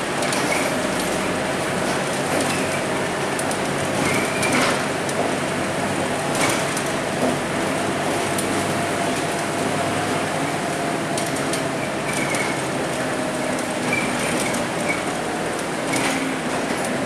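Cabin noise of a Scania K230UB single-deck bus under way, its five-cylinder diesel running with a faint steady whine over tyre noise from the wet road. Occasional clicks and short squeaks come from the interior fittings.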